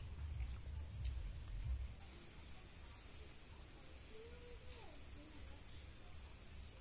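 An insect chirping in short, high-pitched chirps, about one or two a second, over a low rumble.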